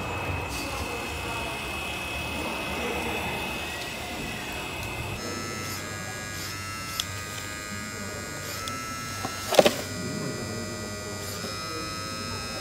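Hydraulic pump of a model skip-loader truck whining steadily as its arms tip a skip and dump sand; the whine steps in pitch a few times. A sharp knock comes about three quarters of the way through.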